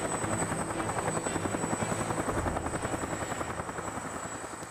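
Agusta-Bell 212 helicopter running, its rotor beating in a rapid, even rhythm over a steady high whine. The sound fades out over the last two seconds.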